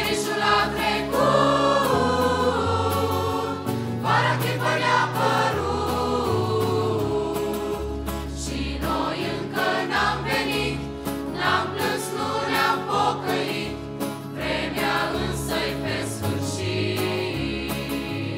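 Mixed teenage choir singing a Romanian Pentecostal hymn in several voice parts, accompanied by acoustic guitar and keyboard, with a steady bass line under the voices.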